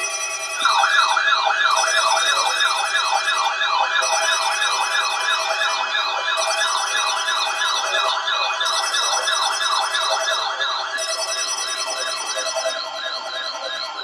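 Weather alert radios sounding their alarms together in response to a weekly test of the NOAA weather radio warning signal. A fast warbling siren of about four rising sweeps a second plays over steady electronic tones. The siren weakens near the end, then everything cuts off.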